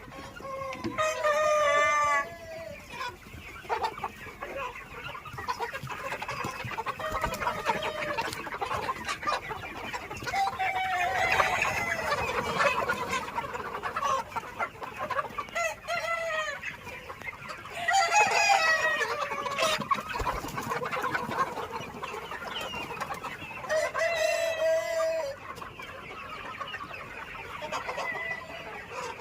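A flock of Sonali chickens clucking and calling continuously, with about five long crows standing out above the chatter.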